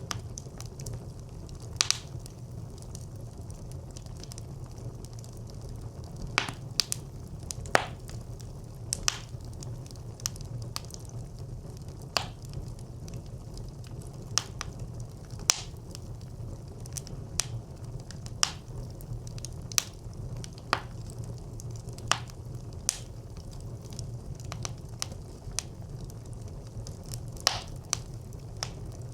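Wood fire burning in a brick clay stove: irregular sharp crackles and pops over a steady low rumble of flames.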